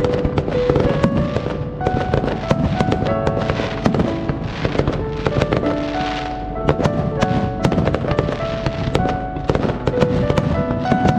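Fireworks bursting in rapid, irregular bangs and crackles, over music with held notes.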